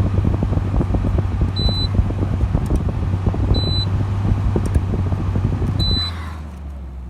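Arctic King 5000 BTU window air conditioner's fan running on high, a steady hum with its airflow buffeting the microphone. Three short beeps from its digital control panel come about two seconds apart, and after the last one, about six seconds in, the fan winds down.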